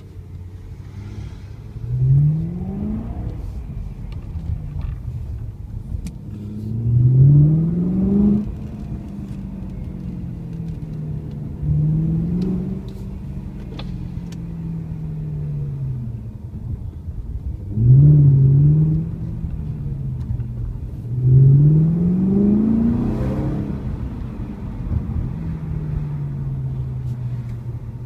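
BMW M3's 4.0-litre V8 with a BMW competition race exhaust, heard from inside the cabin while driving: about five short bursts of acceleration, the engine note climbing in pitch each time, then easing back down to a steady cruise between them.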